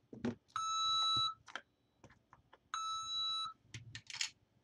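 Piso wifi coin vending machine's buzzer giving two steady electronic beeps, each about three-quarters of a second long and about two seconds apart, as coins are fed into its coin slot, with short clicks and a brief rattle of the coins between the beeps.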